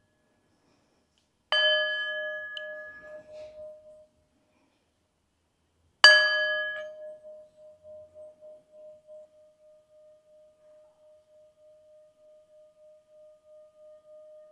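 Small metal singing bowl struck twice with a mallet, about a second and a half in and again about six seconds in. The second strike is louder, and its low tone rings on for several seconds with a slow wavering pulse as it fades.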